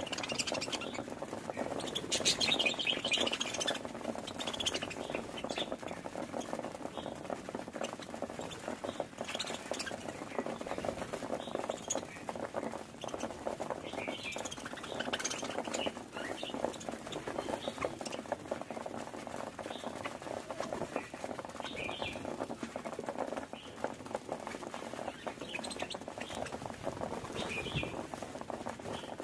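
Budgerigar warbling: a continuous, scratchy chatter broken every few seconds by brighter, higher chirps, the loudest of them about two seconds in. This steady warble is the budgie's contented, happy sound.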